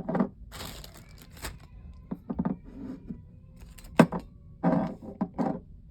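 Small items being handled while packing: a brief rustle, then scattered clicks and knocks, with one sharp click about four seconds in.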